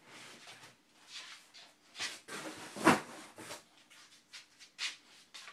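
Paperback cookbooks being handled: a string of paper rustles and slides, with one sharp thump just before three seconds in.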